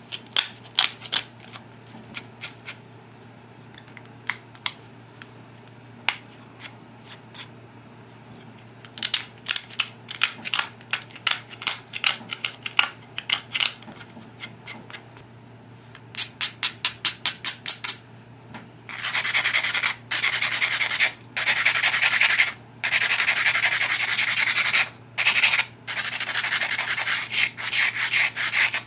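Copper-tipped pressure flaker working the edge of an obsidian biface in quick sharp clicks and scrapes, then, from about 19 s in, an abrader rubbed along the edge in loud rasping strokes a second or two long. The obsidian edge is being ground down into a heavy platform for pressure flaking.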